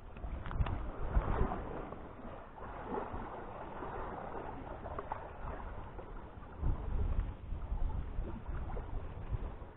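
Wind gusting on the microphone at the seashore, with uneven swells of low rumble and a couple of clicks about half a second in.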